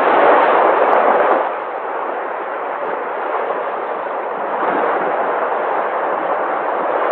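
Sea waves washing onto shore. A loud surge of surf fills the first second and a half, then eases to a steady wash that swells again around five seconds in.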